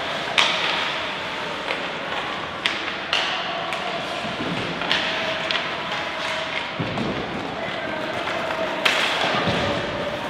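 Ice hockey play in a rink: a handful of sharp knocks of sticks, puck and boards over a steady hiss, the loudest knocks about half a second in and near the end.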